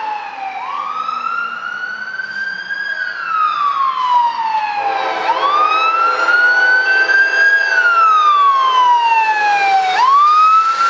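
Fire truck siren wailing, rising and falling in slow cycles of about four to five seconds and growing louder partway through. Steadier lower tones sound beneath it for part of the time.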